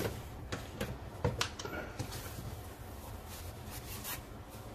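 A few light clicks and taps of small objects being handled on a workbench, over a low steady room hum.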